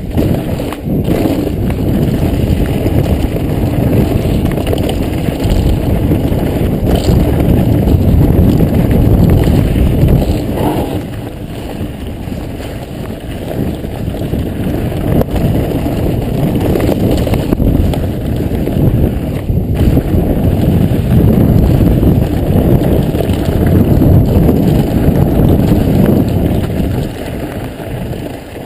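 Mountain bike riding fast over a dirt singletrack, heard through a helmet camera's microphone: heavy, steady wind rumble on the mic mixed with tyre noise and rattling from the trail. It eases off briefly midway, then builds again.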